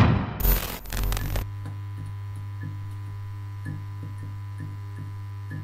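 A whoosh and a short glitchy noise hit in the first second and a half, then a steady low electrical hum with faint ticks about twice a second, the sound design of a logo end card.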